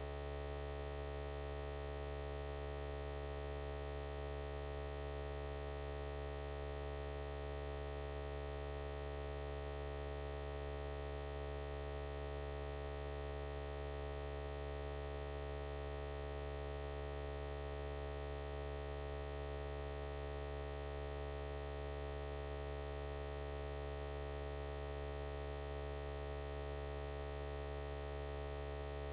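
Low, unchanging electrical hum made of several steady tones, with no other sound over it.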